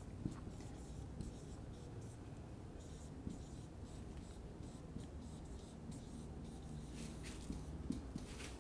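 Whiteboard marker writing on a whiteboard: faint, irregular strokes, with a few louder ones near the end.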